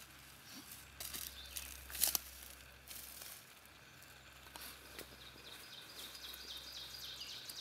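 Rustling and a few sharp clicks in forest-floor leaf litter as a tarp stake is worked into the ground, the loudest about two seconds in, followed by footsteps. Over the second half a bird sings a run of short, high, quickly repeated notes.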